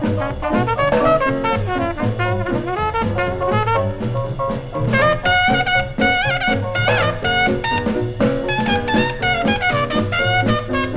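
Upbeat New Orleans-style jazz band music: brass and reed melody over a sousaphone bass line and drums with a steady beat, the lead line bending in pitch about halfway through.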